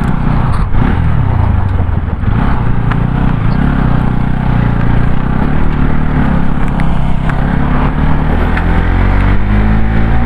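Motor vehicle engine running while driving, its pitch rising and falling with the throttle.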